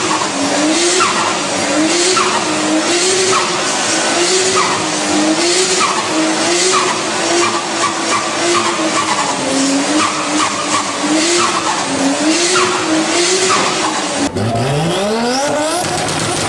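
A car's tyres squeal over a steady hiss while its engine pitch swings up and down about once a second, as in a burnout or donuts. Near the end it cuts abruptly to an engine revving sharply upward.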